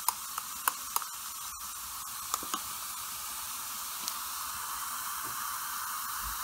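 Aluminium reacting in a beaker of sodium hydroxide and sulfur solution, fizzing steadily as gas bubbles off, with a few light clicks, most of them in the first three seconds.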